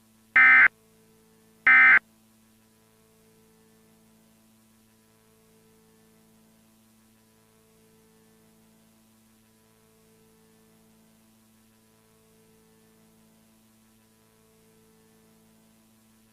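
The last two of the three short EAS end-of-message data tones, about a second apart, marking the end of the alert. A faint steady hum follows.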